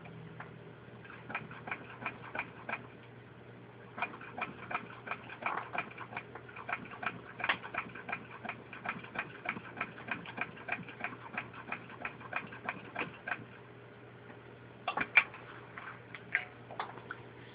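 Antique 1924 Singer 66 sewing machine turned slowly by hand, stitching through six layers of denim: its needle and stitch mechanism click steadily at about three stitches a second. There is a short run, then a long one, a brief pause, and a few louder clicks near the end.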